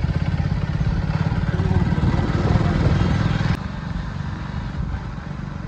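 A vehicle engine running steadily on the move, a low pulsing rumble with road and wind noise, which drops suddenly to a quieter level about three and a half seconds in.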